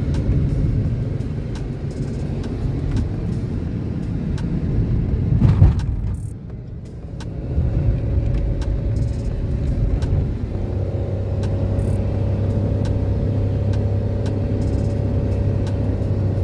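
Car engine and tyre rumble heard from inside the cabin of a moving car. It swells briefly about five seconds in, dips, then settles into a steady engine drone for the second half.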